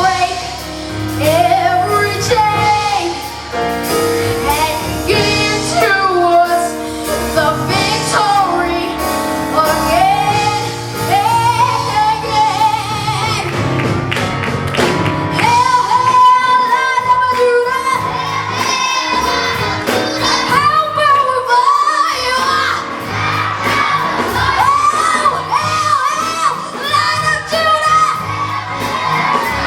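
Live gospel worship song: singers over a band, the voices sliding through long, bending notes with no clear words.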